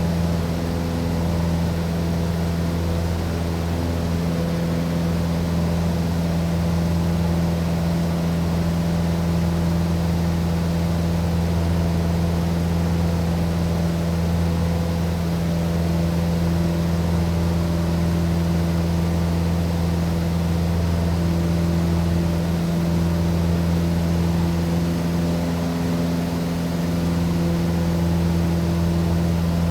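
Aircraft in steady cruising flight: a loud, unchanging engine drone, a deep hum with a few steady tones above it that never rises or falls.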